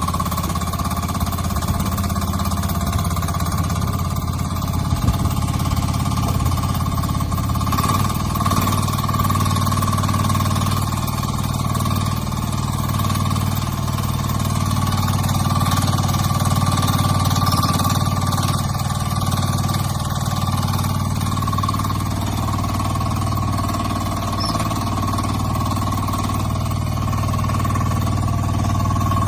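Mini crawler excavator's Kubota engine running at an even speed, with a high whine held over the engine note.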